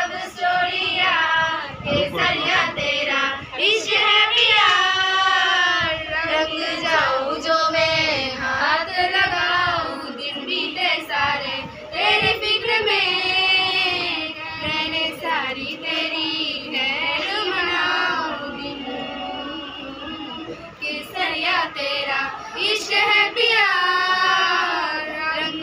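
A small group of schoolgirls singing a song together.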